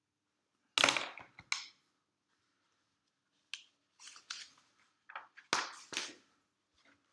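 Handling noise of a sheet of notebook paper: a few short, sharp crackles and taps, bunched about a second in and again between about four and six seconds.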